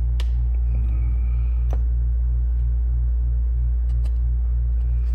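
A loud steady low hum with a slow, even pulsing, with a few light clicks from work at the bench.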